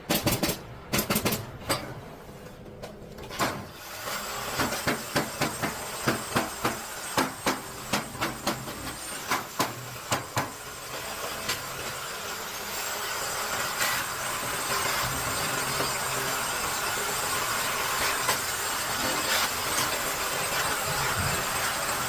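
Hammer blows on pallet wood, a run of sharp strikes at about two a second that stops about eleven seconds in; after that a steady hissing noise carries on.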